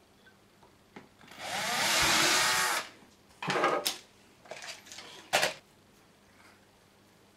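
Cordless drill running for about a second and a half as it drills a hole in a small electrical enclosure box, followed by a few short knocks and rustles as the box and tools are handled.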